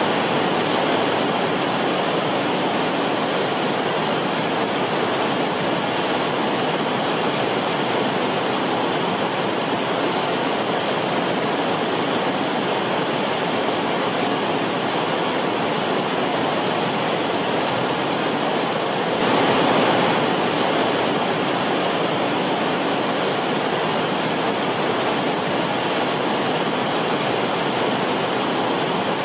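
Forest stream rushing steadily over rocks, with a slight swell in the flow about two-thirds of the way through.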